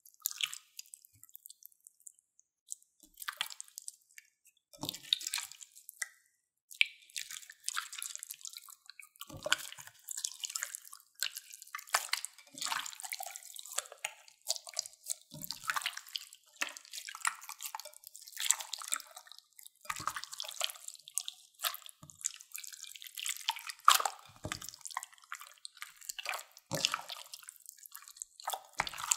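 Clear slime mixed with store-bought slime being squeezed and kneaded by hand in a glass bowl: a continuous run of irregular wet squelches, pops and crackles, with a few deeper squishes as it is pressed down.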